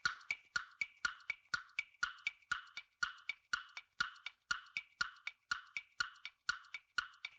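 Countdown-timer ticking sound effect: a steady clock-like tick-tock, about three to four crisp ticks a second in two alternating pitches, marking the answer time running out.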